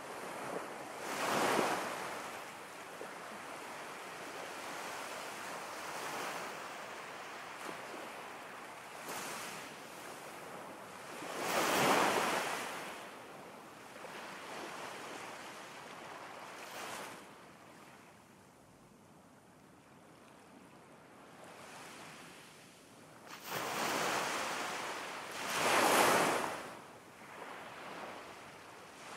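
Ocean surf washing onto a shore: a steady hiss of water that swells into louder breaking waves about a second in, near the middle, and twice near the end.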